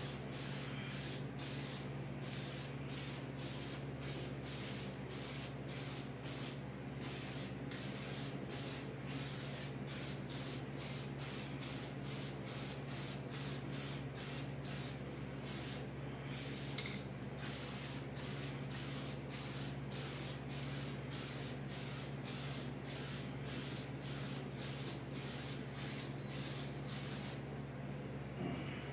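Aerosol spray-paint can hissing in short, rapid bursts as paint goes onto a wheel rim; the spraying stops shortly before the end. A steady low hum runs underneath.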